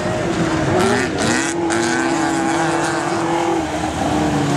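Autocross race car engine running hard on a dirt track as the car approaches; its pitch rises about a second in, holds steady, then falls near the end.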